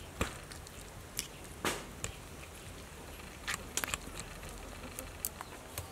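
Wooden chopsticks stirring braised beef in a bowl: a few scattered light clicks and taps, some in quick pairs, over a faint steady background.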